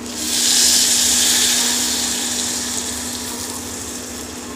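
Hot water poured from a small steel pot into a steel bowl of fried dried elephant foot yam pieces, splashing with a hiss that is loudest in the first second or so and then eases off as the pour goes on.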